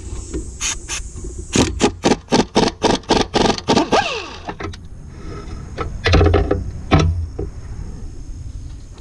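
Hand tools working metal parts: a quick run of about ten sharp metallic clicks, about four a second, then two heavier clunks about a second apart.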